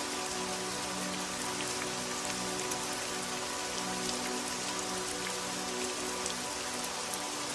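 Steady rain hissing, with individual drops pattering through it. Faint, soft, sustained low music notes are held underneath.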